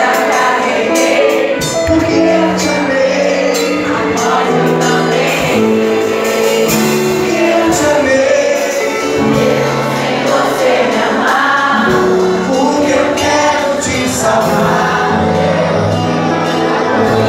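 Live gospel band music with singing: keyboard, guitar, bass guitar and drums playing a worship song.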